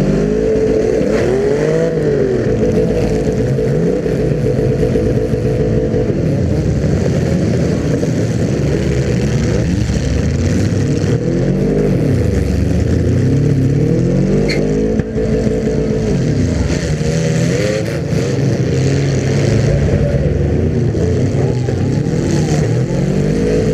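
Demolition derby car engines revving up and down over and over, several at once, loud and continuous, with a brief sharp knock about fifteen seconds in.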